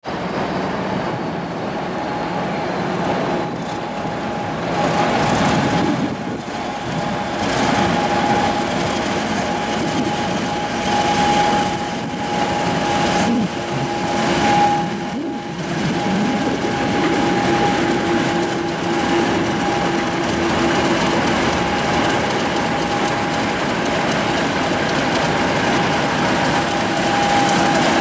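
Four British Rail Class 50 diesel-electric locomotives, each with an English Electric 16-cylinder engine, running in multiple and passing slowly. A steady whine rides over the engine noise, and the sound grows louder over the first few seconds as the locomotives approach.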